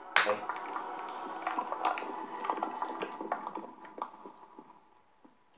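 Opening sound effects of a music video: a crackling, dripping, liquid-like texture of many small clicks over a faint hum. It starts suddenly and fades to near silence about four to five seconds in.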